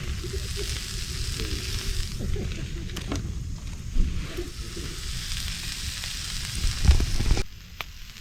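Meat sizzling on an iron griddle plate over a fire, a steady frying hiss with a few sharp knocks. The sizzle drops away abruptly near the end.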